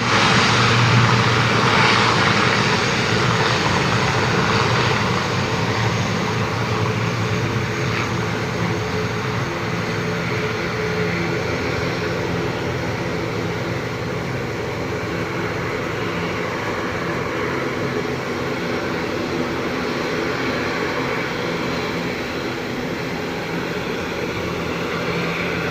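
ATR-72 twin-turboprop airliner's engines and propellers running: a steady loud rush with a low hum, a little louder in the first few seconds.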